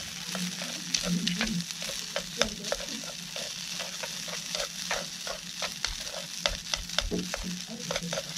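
Garlic rice frying and sizzling in a hot frying pan. Wooden chopsticks stir and break up the rice, tapping and scraping against the pan a few times a second.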